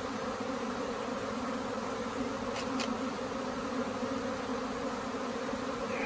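A swarm of honey bees buzzing as it flies around and settles back onto its cluster: a dense, steady hum of many wingbeats.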